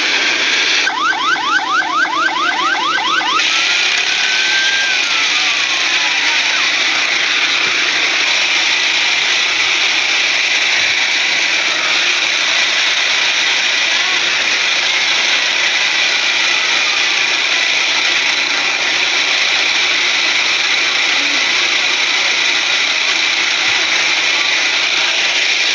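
Emergency vehicle siren yelping in fast rising sweeps, about six a second, for a couple of seconds, then one slower rise and fall. A loud, steady rushing noise follows.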